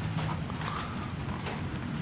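Rain falling, with irregular drops tapping sharply close by, a few times a second.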